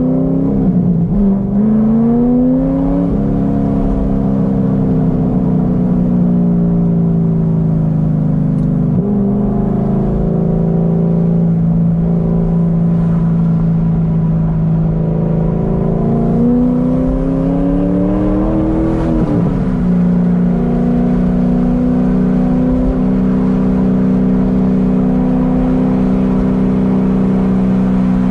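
Modified 2006 Corvette Z06's 7.0-litre LS7 V8, heard from inside the cabin. It climbs in pitch and shifts up about a second in, then pulls and cruises at a steady note. Past the middle it climbs again, shifts up once more about two-thirds of the way through and settles into a steady drone.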